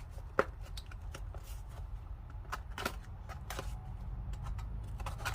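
Light rustling and scattered clicks of a product package being handled and opened, with a sharper click about half a second in.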